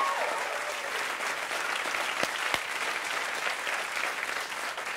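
Studio audience applauding, a dense steady clapping that eases slightly toward the end.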